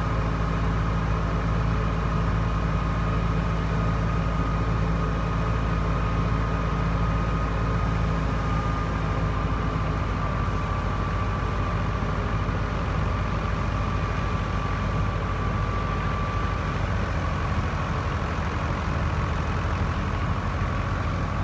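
NH Ghazi tractor's diesel engine running steadily under load as it drives a wheat thresher by belt, with a steady high whine from the threshing machinery over the engine.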